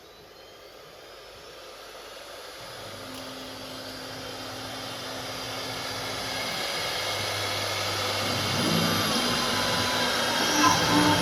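CNC router running with a steady whirring, rushing noise that grows steadily louder.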